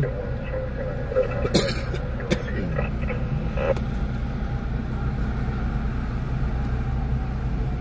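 Steady low rumble of freeway traffic passing, with a few faint clicks in the first few seconds.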